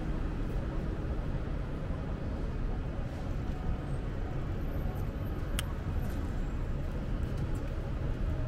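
Steady city street traffic and road noise, heard while riding a bicycle, with a single sharp click a little past halfway.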